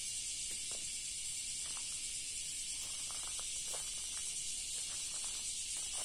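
Cicadas droning in a steady high hiss, with a few faint short ticks through the middle.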